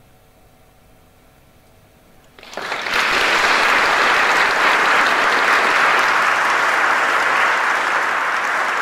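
The last chord of the choir and strings fades into a quiet pause, then about two and a half seconds in the audience starts applauding, a dense, steady clapping that keeps going.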